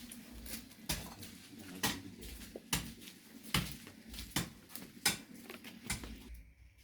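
A hand digging tool striking the soil in a steady run of sharp strokes, about one a second, while grass is being planted.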